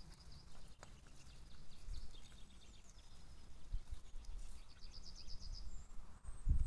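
Faint bird chirps, with a quick trill about five seconds in, over a low outdoor rumble.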